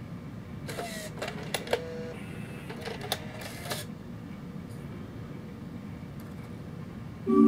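Bose Lifestyle 20 music center's CD mechanism cueing up the disc: a run of mechanical clicks and short motor whirs in the first half, with the loudest clicks about one and a half and three seconds in. Music starts playing suddenly right at the end.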